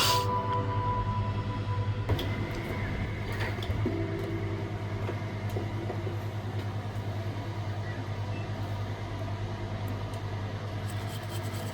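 Steady low electrical hum, with background music fading out in the first two seconds and a few faint clicks.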